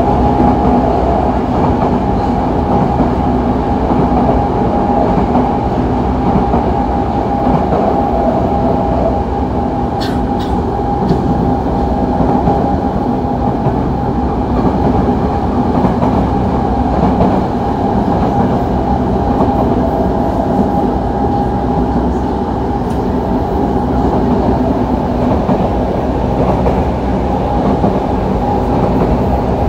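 Yokohama Municipal Subway 3000A train running at a steady speed: a continuous rumble of wheels on rail with a level, unchanging tone over it, and a few sharp clicks about ten seconds in.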